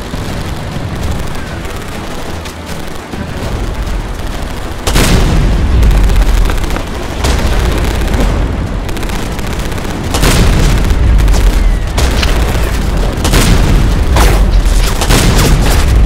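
Film-style battle sound effects for an animated war scene: a string of heavy booms and explosions over a deep rumble. The loudness jumps sharply about five seconds in, and sharper blasts follow repeatedly from about ten seconds on.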